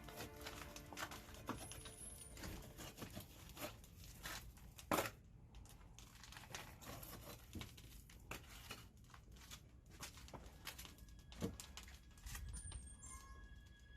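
Firewood burning in a wood-fired kiln, crackling and popping irregularly, with a sharper pop about five seconds in and another near eleven and a half seconds.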